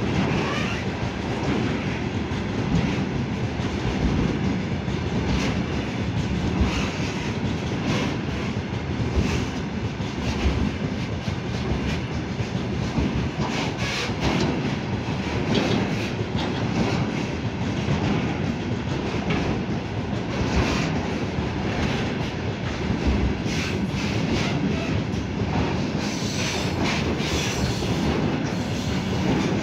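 Container freight train's flat wagons rolling past: a steady rumble of steel wheels on the rails with a continual clatter of clicks as the wheels cross rail joints.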